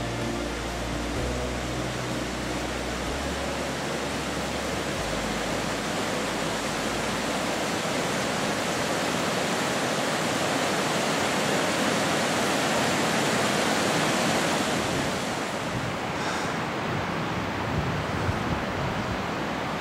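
Steady rushing roar of a fast mountain river, an even noise with no separate splashes. Music with low held notes fades out during the first few seconds.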